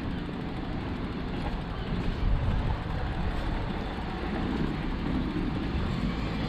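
Steady low rumble of wind buffeting the microphone of a camera on a moving bicycle.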